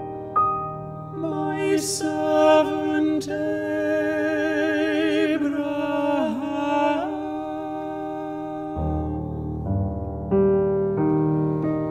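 Classical art song: male voices singing with vibrato over grand piano accompaniment, the voice line dipping in pitch about six seconds in. The piano plays on alone for the last few seconds.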